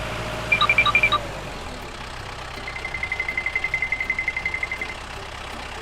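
RC construction vehicle running with a steady engine hum and electronic beeps: a quick burst of four or five short high beeps about half a second in, then a fast run of short beeps, about ten a second, from about three to five seconds.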